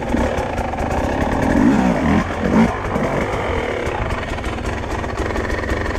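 Enduro dirt bike engine running at low speed over rough ground, with the revs rising and falling in a couple of brief throttle blips about two seconds in.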